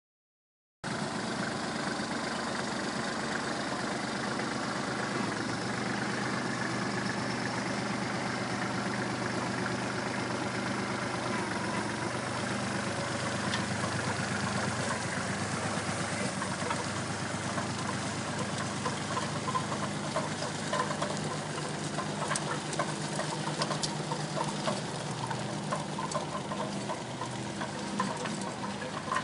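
Tractor engine running steadily while it pulls a planter, starting just under a second in. In the second half a light, rapid clicking and rattling from the machinery joins in.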